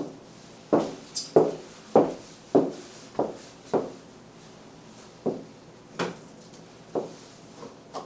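Footsteps in new high heels on a hard floor: a run of sharp knocks about two a second, then a few slower, more spaced steps from about five seconds in.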